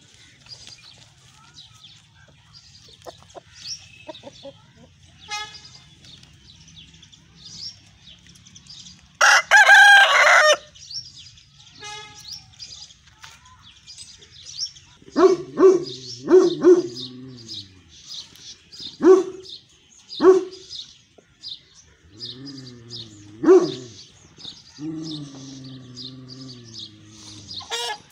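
White Aseel rooster calling: one loud crow lasting about a second about a third of the way in, then from about halfway a series of low clucks and longer, wavering calls. Small birds chirp faintly throughout.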